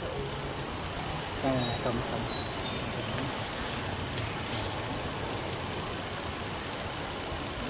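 Insects in the riverside vegetation sounding a steady, unbroken high-pitched drone.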